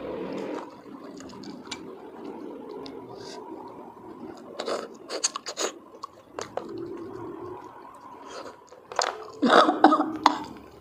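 Close mouth sounds of eating cooked golden apple snails: chewing and sucking the meat from the shells, with scattered sharp clicks. A cluster of clicks comes about halfway through, and a louder burst of eating noises near the end.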